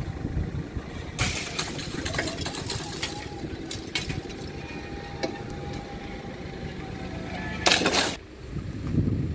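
A vehicle engine running with a steady low rumble. There are a few sharp bursts of noise, and a louder half-second burst just before the end.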